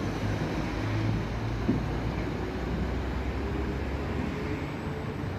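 Northern Class 195 Civity diesel multiple unit pulling away and receding, its diesel engines a low steady drone that fades about four seconds in. One brief knock just under two seconds in.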